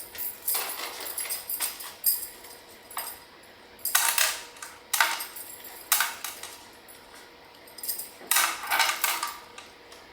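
Several metal bracelets on a wrist jangling and clinking in short bursts, about six times, as the hands move while laying out sausage rolls.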